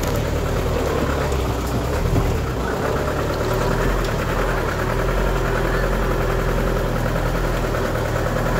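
Bus engine running steadily as the bus drives, an even low hum with no change in pitch.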